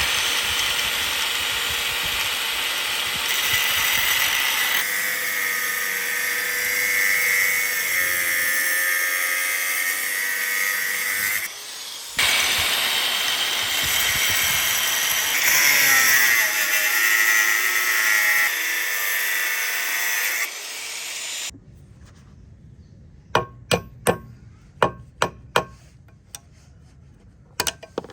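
Power grinder running against steel, its whine dipping and rising in pitch as it bites, with a short stop about halfway. After it stops, a handful of sharp metallic clinks.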